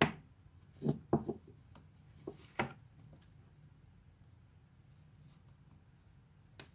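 Handling noise of a wristwatch with a leather strap and metal case: a few light clicks and knocks in the first three seconds as it is picked up and turned in the hands, and one more small click near the end.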